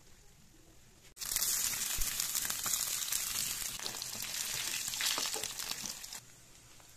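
Slices of boiled pork frying in hot oil in a pan, sizzling with a dense crackling hiss. It starts abruptly about a second in and cuts off abruptly near the end.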